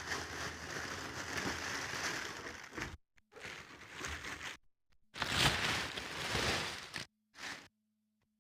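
Packaging rustling and crinkling in several bouts as a welding helmet is unwrapped by hand, stopping a little before the end.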